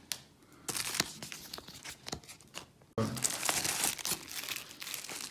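Packaging being handled and torn open, crinkling and rustling with scattered sharp clicks and a denser burst of rustle about three seconds in.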